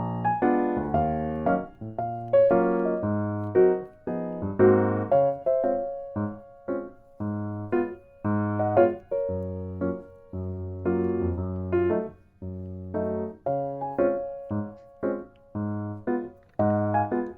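Background piano music: a light tune of short, quickly decaying notes over a repeating bass note.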